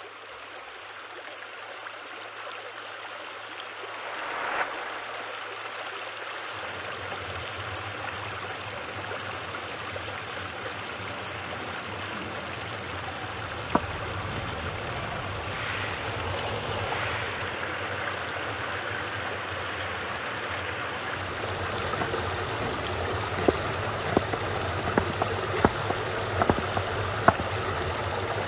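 Running or bubbling water, a steady rushing that slowly grows louder, with scattered sharp clicks in the last several seconds.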